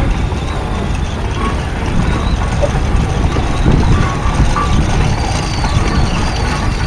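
Ploughing engine running: a steady heavy low rumble, with faint short higher tones above it.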